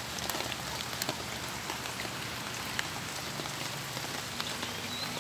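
Rain falling: a steady even hiss with scattered sharp ticks of individual drops.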